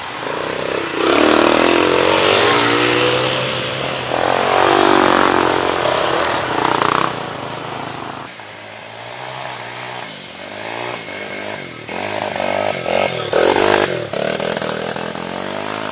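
Dirt bike engine revving up and down as the rider climbs the trail and passes close by, loudest for the first seven seconds. Fainter revving follows, with a short louder burst a couple of seconds before the end.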